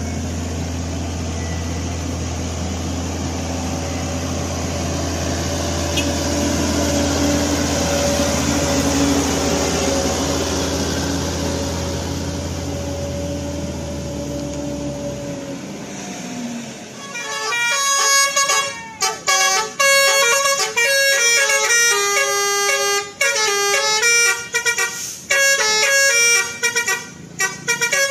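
A heavy truck's engine runs steadily with road noise for about fifteen seconds, then stops abruptly. A few seconds later comes a loud run of changing horn notes that play a melody, like a multi-tone 'telolet' air horn.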